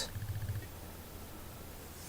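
Faint steady room noise and hiss, with a low hum that fades out in the first half second.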